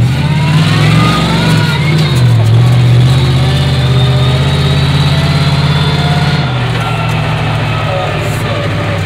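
Grave Digger monster ride truck's engine running under load, heard from inside the passenger cabin; it revs up with rising pitch in the first couple of seconds, holds loud, then eases off about six and a half seconds in.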